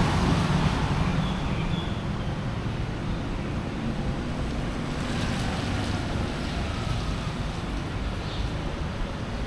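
Road traffic rumbling by with wind buffeting the microphone; a vehicle close by fades away in the first second or two, leaving a steady traffic rumble.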